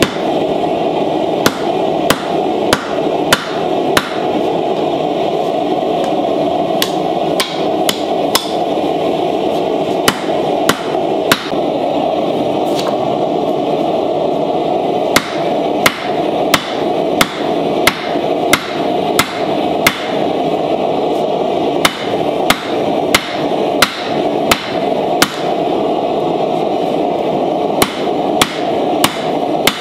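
Hand hammer striking a red-hot railroad-spike knife blank on a steel anvil, in runs of sharp blows about two a second with pauses of a few seconds between runs. A steady rushing noise runs underneath the blows.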